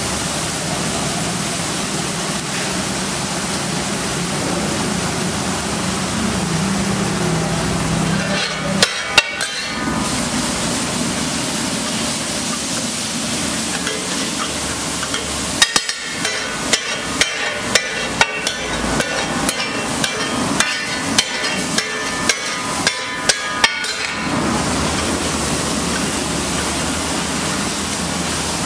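Vegetables and masala sizzling on a large flat iron tava while a steel spatula strikes and scrapes the griddle. There is a short burst of clanks about nine seconds in, then a run of sharp chopping strikes at about two a second for some eight seconds.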